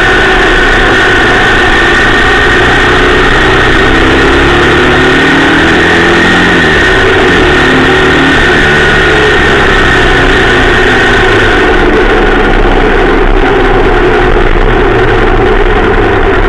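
Motorcycle engine running under way, with a loud steady rush of air noise over it. The engine note falls about six to seven seconds in, then holds steady again.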